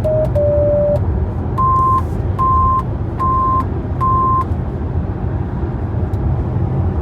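Electronic warning tones from a VW T6.1 van, which the owner calls a weird alarm sound. A falling run of beeps ends in one longer low tone about a second in, then four short higher beeps come at an even pace, over the van's steady low rumble.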